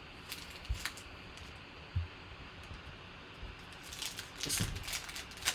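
Trading cards being handled and flipped through by hand: a few light clicks and a soft thump, then a run of quick rustling slides near the end.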